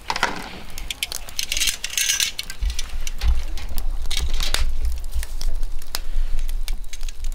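Raw meat being laid on a charcoal grill's wire grate with metal tongs: clicks and clinks of the tongs against the grate, and short sizzling bursts as pieces hit the hot grate, twice within the first five seconds. A low wind rumble on the microphone comes in about two and a half seconds in.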